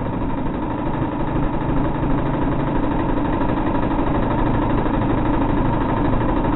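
Steady mechanical rumble with a hiss over it, running without a break.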